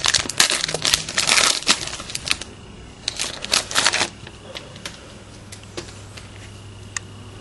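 Trading-card pack wrapper being torn open and crinkled by hand, a busy crackling rustle for about the first four seconds. It then settles to a few light clicks of handling.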